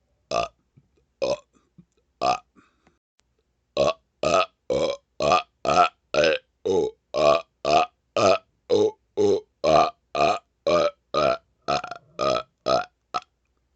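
A man burping: three separate burps about a second apart, then a rapid-fire run of about twenty short, evenly spaced burps, two a second.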